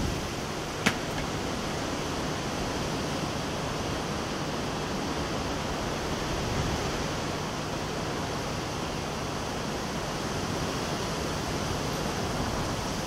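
Steady rushing wind noise, with a single sharp click about a second in.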